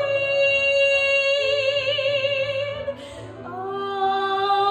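A woman singing a show tune: one long held note with vibrato for about three seconds, then, after a short dip, a second note that slides up and holds.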